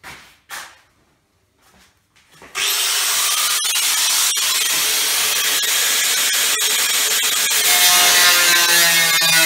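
Makita angle grinder with a cutting disc, started about two and a half seconds in after a couple of soft knocks, cutting through the sheet steel of a panel-lift garage door with a loud, steady screech. Near the end a whine that drops in pitch joins it.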